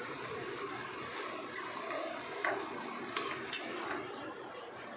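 Grated carrots cooking with sugar in a kadhai, sizzling softly as the syrup cooks off, stirred with a perforated steel slotted spoon that clicks against the pan about four times.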